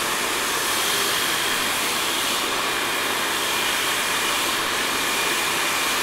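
Diva Ultima 5000 Pro hairdryer running steadily on medium heat and medium speed, blowing through its perforated wand attachment: a constant rush of air with a faint steady high whine.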